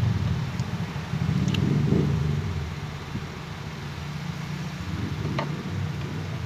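A low engine-like rumble, loudest over the first two seconds and then easing off, with two light clicks about one and a half and five and a half seconds in.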